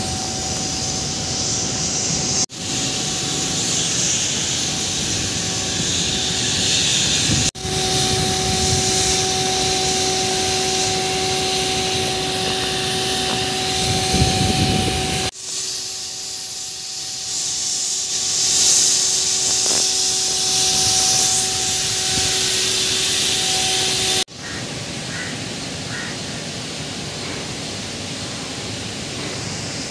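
Steady roar and hiss of thermal power plant machinery, with a steady hum in some stretches. The sound changes abruptly about four times.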